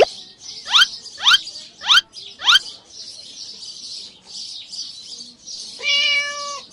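A run of quick rising chirps, five in the first three seconds, over a steady high hiss, then one steady pitched call near the end.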